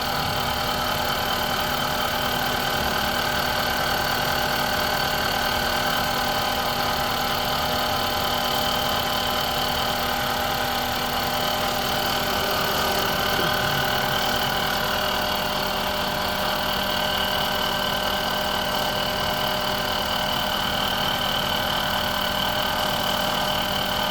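2005 Honda Civic's four-cylinder engine idling steadily, making a strange noise that the mechanic, listening with a stethoscope, places up in the cylinder head and takes for the camshaft.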